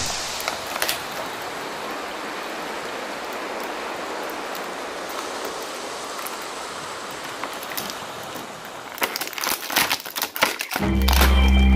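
Clear plastic packaging rustling steadily, like light rain, as hands work an action figure free of its tray, with a run of sharper crackles near the end. Guitar music starts about a second before the end.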